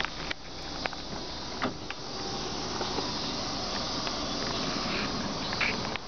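Steady hissing noise with a few soft clicks early on and a small knock near the end.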